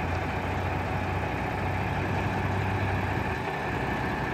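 Concrete mixer truck running steadily while its drum turns to mix the load, with a low steady hum that fades a little past three seconds in.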